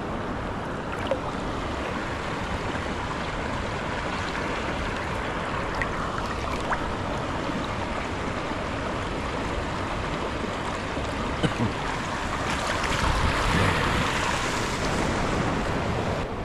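Steady rush of water from a creek waterfall and rapids, swelling a little louder about twelve seconds in, with a few small clicks.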